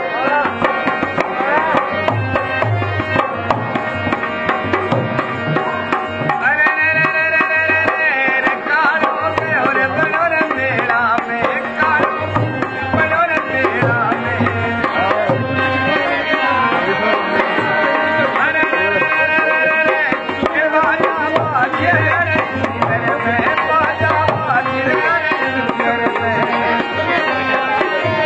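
Folk music accompanying a kathputli string-puppet show: a hand drum keeps a quick, steady beat under a melody with long held notes.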